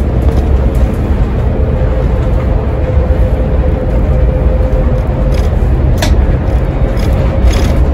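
Iveco Crossway Line bus with its Iveco Cursor six-cylinder diesel and ZF six-speed automatic gearbox, heard from the driver's area inside the bus: steady engine and road rumble while cruising, with a steady whine over it. A single sharp click about six seconds in.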